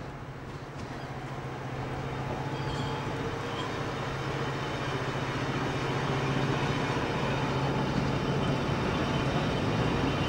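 Class 55 Deltic diesel locomotive running with a steady engine drone, heard from a carriage behind it together with the train's running noise, growing gradually louder.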